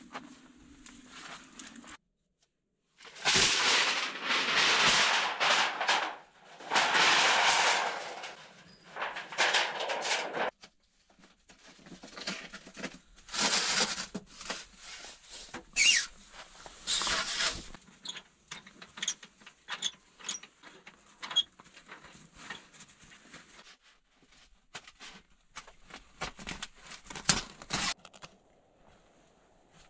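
A small metal wood stove and its stainless-steel telescoping flue pipe being handled: several bursts of metal sliding and scraping, one with a brief high squeal, followed by a run of light clicks and knocks.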